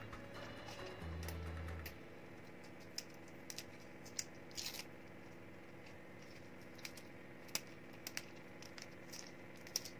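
Scattered small crisp clicks and snaps of fresh winged beans being trimmed and split by hand, over faint background music whose low bass notes are loudest in the first two seconds.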